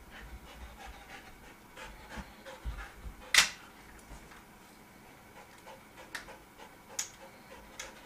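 Golden retriever panting in short quick breaths, with one sharp knock about three and a half seconds in and a lighter click near the end.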